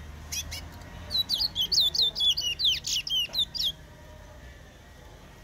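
Caged songbird singing one rapid phrase of sharp, downward-sweeping notes, starting about a second in and lasting about two and a half seconds, with a few short clicks just before.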